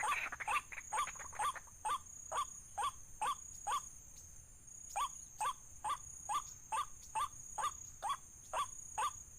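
White-breasted waterhen calling a steady series of short, hooked 'kwak' notes, about two a second, with a brief pause about four seconds in. This is the waterhen call used as a lure to draw the bird into the net.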